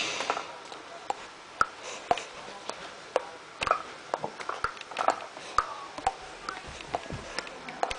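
Irregular, scattered clicks and short pops, a few each second, some with a brief chirp, over a faint steady high-pitched whine.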